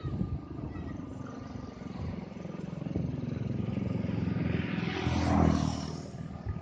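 Diesel-electric locomotive hauling a freight train towards the listener, its engine running with a low steady drone that swells to its loudest a little past five seconds in, then eases slightly.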